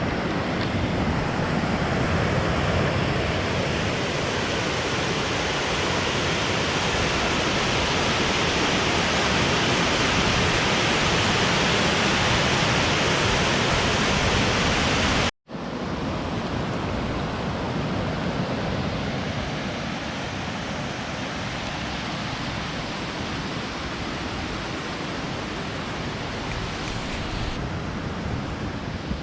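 Steady rushing noise. It drops out for a split second about halfway through, then resumes slightly quieter.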